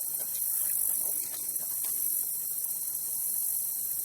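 Steady high hiss of background noise with a faint hum and a few faint clicks; no shot is fired.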